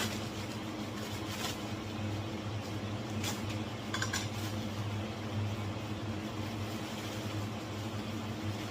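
Packaging and bow vise parts being handled during unboxing: a few light clicks and rustles over a steady low electrical hum.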